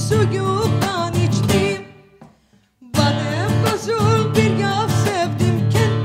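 Live acoustic performance of a traditional Cypriot folk song: a Guild acoustic guitar strummed and picked under a woman's singing, with steady percussion hits. About two seconds in the music stops together and dies away to near silence, then comes back in sharply about a second later.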